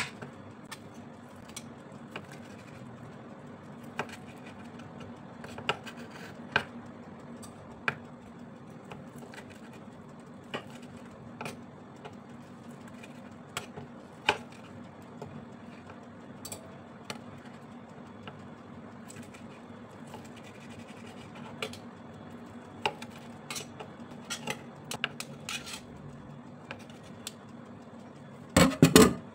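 Kitchen knife slicing through fermented pork sausage onto a wooden cutting board: scattered taps and knocks at irregular intervals, with a louder burst of clatter near the end, over a low steady hum.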